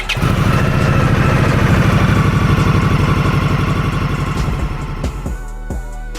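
2017 Indian Scout Sixty's V-twin engine starts and idles with an even beat on fresh oil, run briefly to circulate it after an oil change, before dying away about five seconds in.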